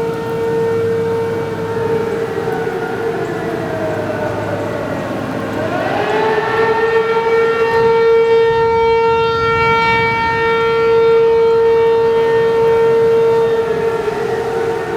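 Outdoor tornado warning sirens sounding an alert for a tornado warning: one holds a steady tone while a second one's pitch falls, rises sharply about six seconds in, holds high, then falls again near the end.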